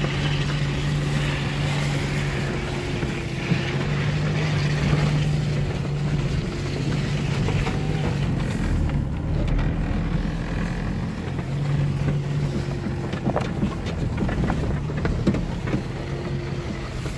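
Car engine running and tyres rolling over a rutted, snowy dirt track, heard from inside the cabin; the engine's hum swells and fades as the load changes, with a few scattered knocks in the second half.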